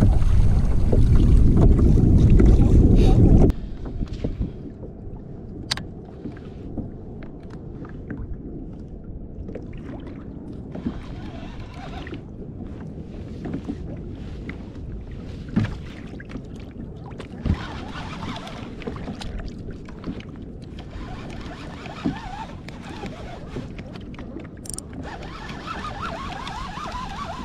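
Wind buffeting the microphone, cutting off abruptly after about three and a half seconds. Then a quieter stretch of small clicks and knocks of fishing gear on a kayak, with a fishing reel being cranked near the end.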